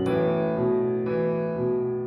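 Slow keyboard music with a piano tone: sustained notes ring on, and a new one is struck about every half second.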